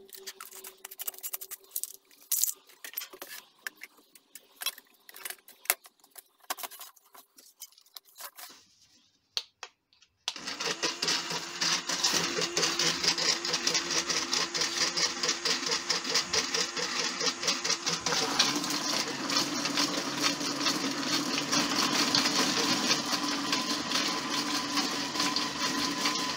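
Clicks and knocks of a plastic drum being handled, its screw lid fitted and the drum set into a small electric tumbling machine. About ten seconds in, the tumbler starts: a loud, continuous rattle of sand and rusty nuts and bolts churning in the plastic drum over a steady motor hum, the sand scouring rust off the hardware.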